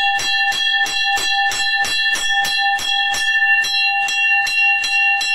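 Puja bell rung steadily at about five strokes a second, its ringing tone carrying on between strokes.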